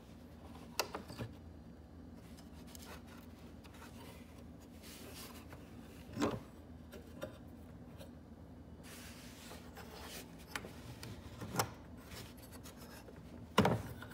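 Steel latches on a wooden ammunition crate being handled: scattered metal clicks and knocks against the wood, the loudest near the end, with some rubbing in between.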